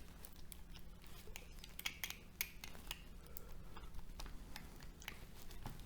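Small screwdriver prying and scraping between the lacquered steel laminations of a transformer core: a string of faint, irregular metal clicks and ticks as the I-pieces are worked loose.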